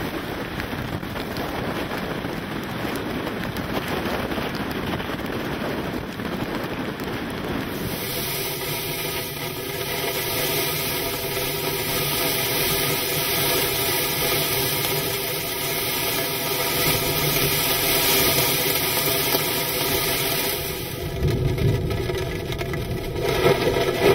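Category 1 hurricane wind blowing across a beach, a steady rushing noise. About a third of the way in it turns to a brighter hiss of wind-driven sand and a steady hum of several tones joins it. A few loud knocks come near the end.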